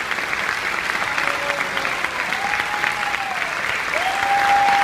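Theatre audience applauding a curtain call: steady, dense clapping, with a few long held notes sounding over it.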